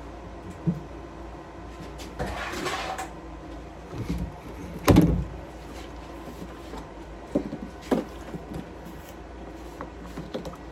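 Household handling noises: scattered knocks and bumps, with a short rustling hiss about two seconds in and the loudest bang about five seconds in.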